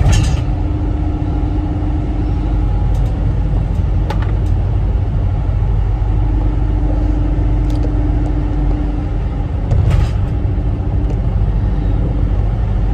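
Steady low rumble of a cargo van's idling engine heard from inside the cab, with a lighter struck right at the start and a few faint clicks later.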